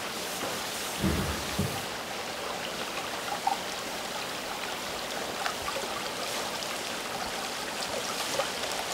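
Running water, a steady splashing flow, with a few low knocks about a second in.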